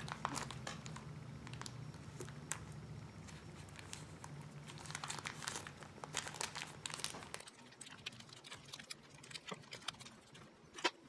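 Small plastic baggie of fishing hooks crinkling and rustling as it is folded down in the hands, with light clicks throughout and one sharper click near the end.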